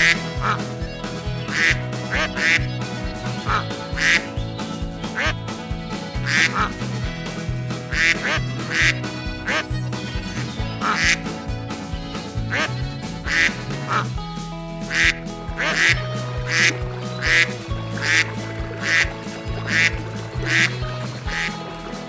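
Ducks quacking over and over, about one to two short quacks a second, over background music.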